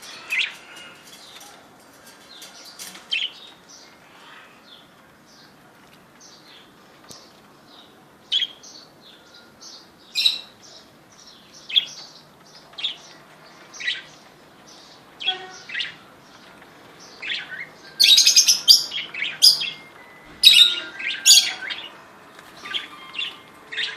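Pet cockatiels chirping in short, separate calls, with a louder flurry of chirps about eighteen seconds in and again around twenty-one seconds.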